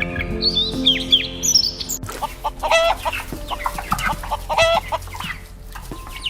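Bird calls over background music: quick chirping for about two seconds, then, after an abrupt change, a few harsh squawking calls.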